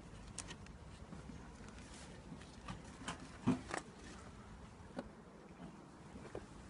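Scattered light knocks and clicks of beehive parts being handled and set down, the loudest about three and a half seconds in.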